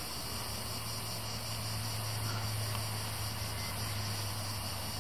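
Steady outdoor background: a constant low hum with a high, steady insect drone and a light hiss above it.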